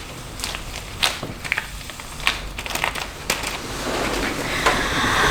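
Sticky crackling and irregular clicking of hands working thick, glue-like Nutella through hair.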